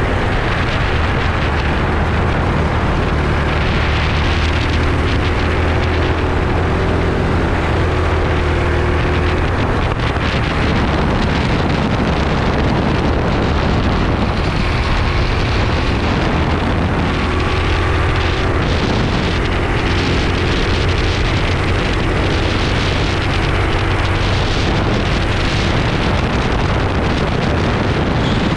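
Racing go-kart engine running hard, its note rising and falling as the throttle opens and lifts through the corners, with heavy wind noise on the microphone.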